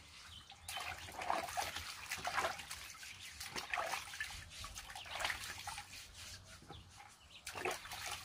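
Water sloshing and splashing in a plastic bucket as sweet potatoes are rubbed clean by hand and lifted out, in irregular splashes.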